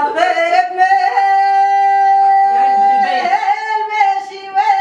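A woman singing a Tunisian folk song with no clear accompaniment. She holds one long note through the middle, with a lower steady tone sounding beneath it, and wavers the pitch in ornaments at the start and end.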